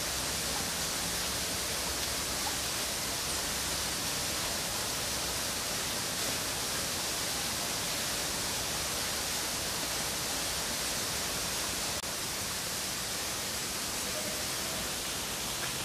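A steady, even outdoor background hiss with no distinct events, dropping slightly in level about twelve seconds in.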